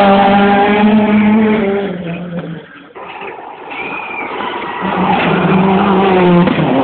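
Rally car engine at high revs passing at speed, its pitch dropping as it goes by and fading away over about three seconds. A car's engine then builds again and is loud near the end, with a sudden change of pitch as it passes.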